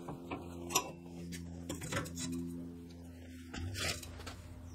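Scattered light clicks and taps of marking-out tools, a combination square and a marker, against a steel flat bar held in a bench vise. Under them runs a steady low hum.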